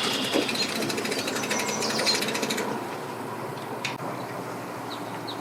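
Small engine running with a rapid, even rattling beat that drops away after about two and a half seconds, leaving quieter background with a few faint bird chirps near the end.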